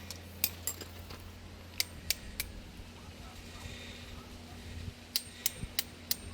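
Sharp, light metallic clicks and taps of hand tools on motorcycle parts: a few scattered ones early, then a quicker run of clicks near the end, over a steady low hum.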